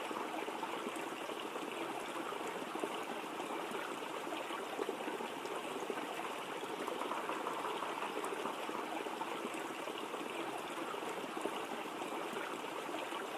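Waterfall: steady rushing and splashing of falling water.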